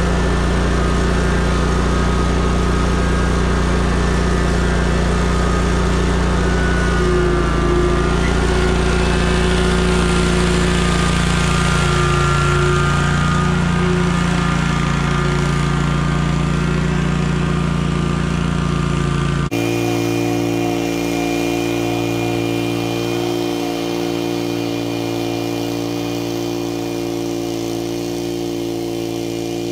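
Zero-turn riding mower engine running close by while towing a weighted plug aerator, its pitch shifting as the mower moves off. About twenty seconds in, the sound cuts abruptly to a different steady engine drone.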